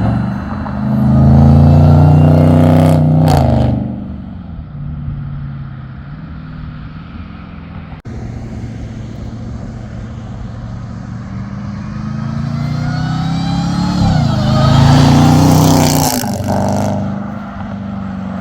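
Hellcat's supercharged 6.2-litre V8 revved twice, each rev rising, holding and dropping back to a steady idle. A rising supercharger whine sits over the exhaust on the second rev.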